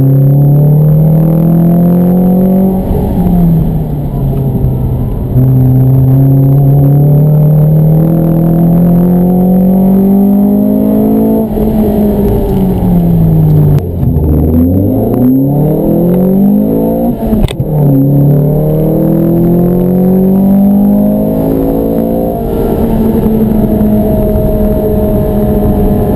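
Ford Fiesta ST's 2.0-litre four-cylinder engine with a Mountune MR200 upgrade, heard from inside the cabin. It is driven hard: the pitch climbs steadily through each gear and drops back at every gear change. Midway the revs fall very low and climb again, and a single sharp knock comes about two-thirds of the way through.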